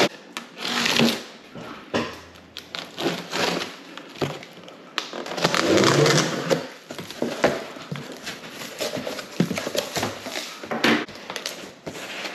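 A large cardboard box being opened by hand: packing tape pulled and peeled off, and the flaps folded back. Irregular rustling, scraping and knocks of cardboard, loudest around the middle.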